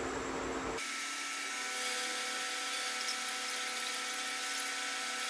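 Steady hiss with a thin high-pitched whine from a pot of wort heating on the stove toward the boil. The low rumble under it drops out abruptly about a second in.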